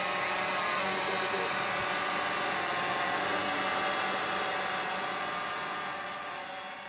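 DJI Phantom 2 Vision quadcopter flying overhead, its four electric motors and propellers giving a steady, many-toned buzz that fades out near the end.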